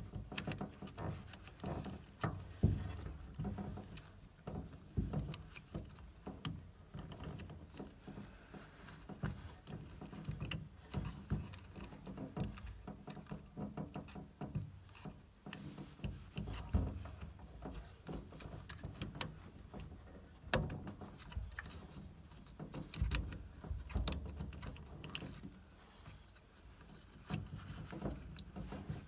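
Irregular clicks, taps and knocks with low handling rumbles: hands and tools working on a combi boiler during a pump change.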